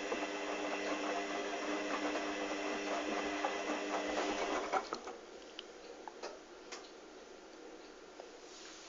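Hoover Dynamic DYN 8144 D washing machine tumbling a load of towels during a cotton 60 °C wash with prewash: the drum motor hums steadily with small clicks and splashes, then stops about five seconds in, leaving a quiet pause with a few faint clicks.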